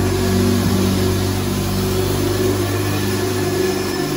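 Zamboni ice resurfacer's engine running steadily close by, a constant low, even hum.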